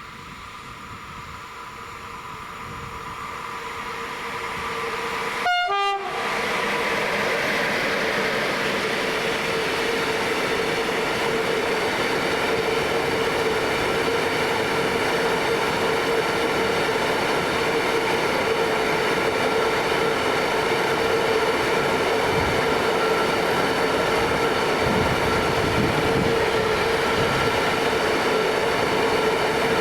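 Freight train approaching, growing louder, with a short horn blast about five and a half seconds in. The train then rolls steadily past close by, locomotive and wagons together.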